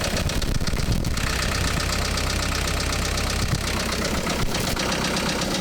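Case 430 skid steer's four-cylinder diesel engine running with a steady mechanical knock that is not diesel knock, the sign of bottom-end damage that the owners tie to lost oil pressure and a damaged crankshaft. About a second in, the engine note gets fuller.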